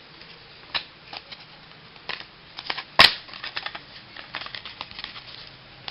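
Baseball trading cards being handled and flipped through: scattered light clicks and rustles of card stock, with one sharp snap about three seconds in.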